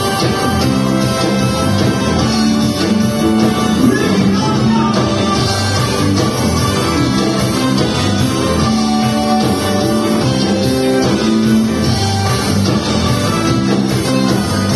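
Rock band playing live: electric guitars with a drum kit and keyboard, at a steady loud level.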